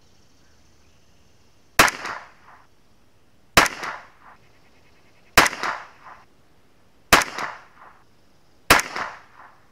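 Five shots from a CZ 457 Pro Varmint bolt-action .22 LR rifle, evenly spaced about a second and three quarters apart, each a sharp crack with a short tail.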